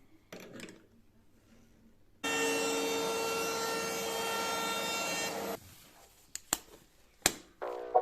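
A power tool working wood runs steadily for about three seconds, with a steady whine over the noise, starting and stopping abruptly. A few sharp knocks follow.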